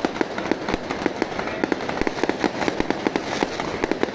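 Fireworks going off as a rapid, irregular string of sharp bangs and cracks, many per second, with no pause.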